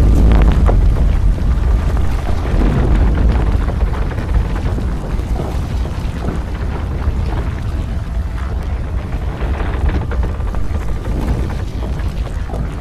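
Collapse sound for a tall tower of wooden planks: a deep, sustained rumble with many clattering knocks of falling planks, loudest at the start and easing off slowly.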